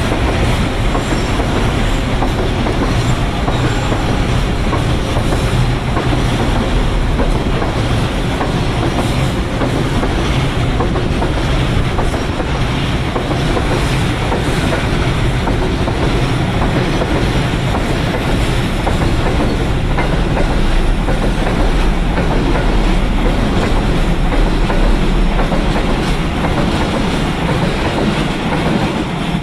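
Container freight train passing close by: the steady, loud rolling noise of its flatcar wheels on the rails. The noise starts to drop right at the end as the last wagons go past.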